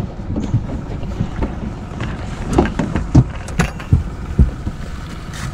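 Wind on the microphone and a steady low rumble aboard a small boat, with a handful of sharp irregular knocks as the crab pot float and line are pulled in against the boat.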